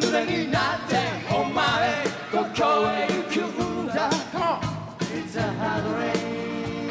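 Live pop-rock band playing with voices singing over it, drums keeping a regular beat.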